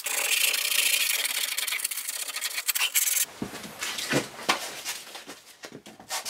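Wooden box corners being hand-sanded with a piece of sandpaper: a steady scratchy rubbing for about three seconds, then a run of shorter, separate strokes.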